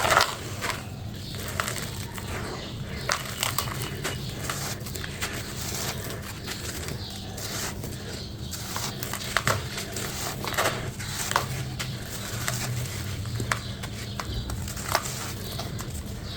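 Crunchy hole-shaped crumble pieces being crushed and broken apart: an irregular run of crisp crunches and crackles. The loudest crunch comes right at the start, and a few sharper cracks are scattered through.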